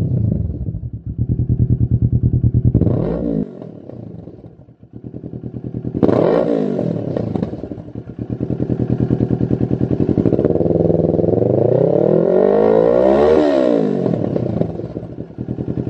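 Kawasaki Z650's parallel-twin engine through a Lextek SP8C carbon-fibre slip-on silencer, idling and being revved: short blips about three and six seconds in, then a longer climb in revs that peaks near the end and drops back to idle.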